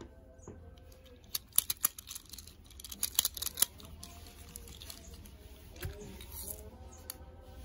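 Sharp plastic clicks and snaps from a football-shaped plastic candy-dispenser toy being twisted and pulled apart by hand, in a quick cluster about a second and a half in and another about three seconds in, with a few single clicks near the end.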